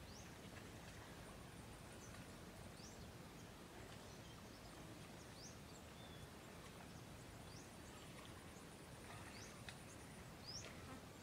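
Faint rural ambience: a low steady hiss with short, high, upward-sweeping chirps of small birds every second or so, and a thin steady high whine that stops near the end.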